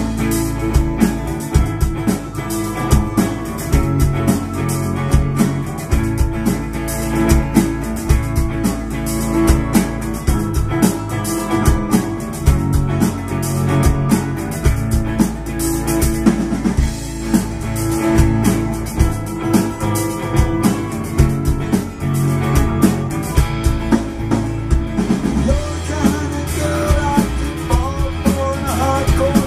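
Rock band playing a song: a steady drum kit groove with bass drum and snare hits under electric guitar and bass. A higher wavering melody line comes in near the end.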